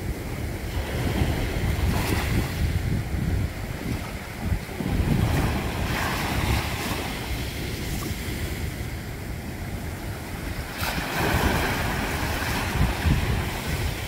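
Sea waves washing and splashing against a rock, swelling in several surges, with wind buffeting the microphone.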